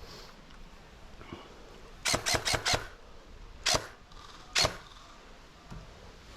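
Airsoft gun firing: a quick burst of about five sharp shots about two seconds in, followed by two single shots about a second apart.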